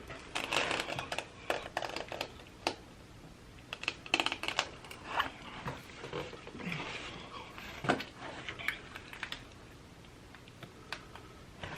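Scattered clicks, taps and short rustles from objects being handled close to the microphone, in irregular clusters.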